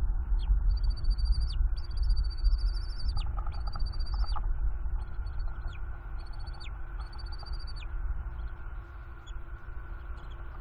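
Young bald eagle chittering: five high, thin calls, each held under a second or so and dropping in pitch at the end, over a steady low rumble of wind on the microphone.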